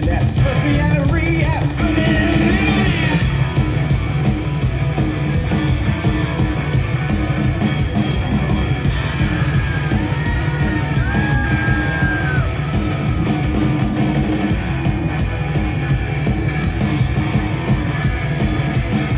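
Live rock band playing loudly, with drums, guitars, keyboards and vocals, heard from within the crowd.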